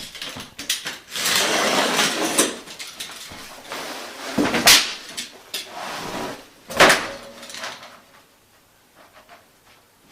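Underlay being handled and laid down: a stretch of rustling, then two sharp knocks about two seconds apart, then a few faint clicks.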